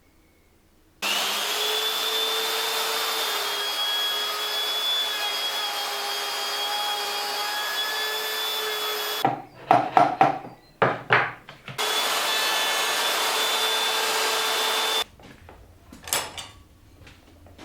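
Electric drill boring a hole through a wooden tabletop: the motor winds up to a steady whine about a second in and cuts for about eight seconds, followed by a few sharp knocks, then a second run of about three seconds and some lighter knocks near the end.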